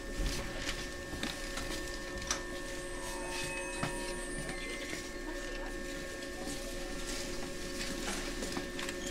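Steady electrical hum of a JR 123 series electric railcar, several fixed tones under a light hiss, with scattered small clicks and knocks and no rise or fall in pitch.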